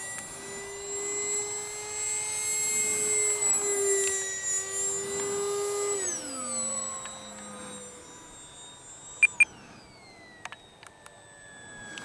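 The 64 mm electric ducted fan of a TechOne Neptune RC flying wing whines steadily at speed, then winds down to a lower pitch about six seconds in. Two short beeps come a little past the middle.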